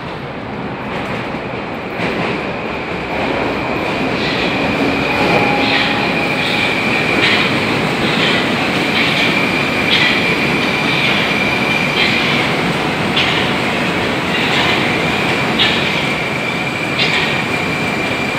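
Metro train running alongside the platform, growing louder over the first few seconds and then holding a steady rumble. A thin high wheel squeal sounds over it, with regular clacks about once a second.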